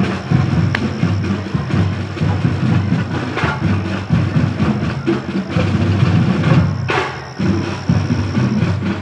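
Drum-heavy music, percussion and drums beating, with some sharp knocks, carrying from the crowd gathered across the tracks.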